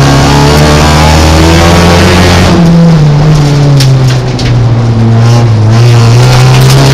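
Folkrace car's engine running hard at high revs inside the stripped cabin. The note drops about two and a half seconds in and then climbs again. Sharp clicks and ticks from loose gravel hitting the car come in from then on.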